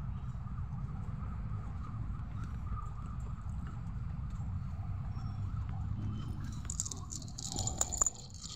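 Dry cat kibble rattling and clattering out of a clear plastic container onto paving, starting about seven seconds in. Beneath it runs a steady low rumble of street traffic with a faint wavering high tone.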